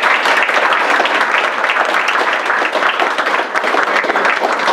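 An audience applauding, many hands clapping together at a steady level.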